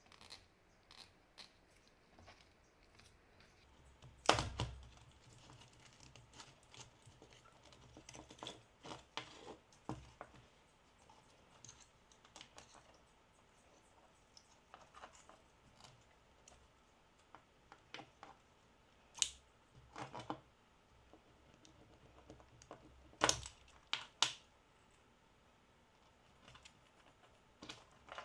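Hands handling and pulling apart the metal and plastic parts of an impact driver (motor, switch, wiring, gear parts) on a wooden table: scattered light clicks, rattles and small knocks. The loudest is a knock with a dull thud about four seconds in, with more sharp clicks near the end.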